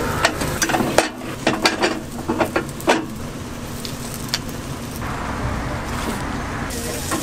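Sharp metal clicks and clanks of bungeoppang (fish-shaped bread) molds being opened, closed and turned. The batter sizzles on the hot molds, with a steady hiss in the middle stretch.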